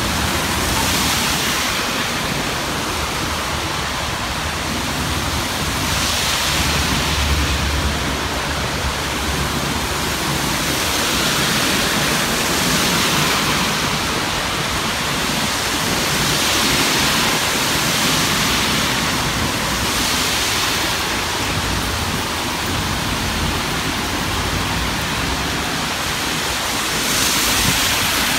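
Steady roadside traffic rush, with vehicles swishing past every few seconds and a low engine rumble about seven seconds in.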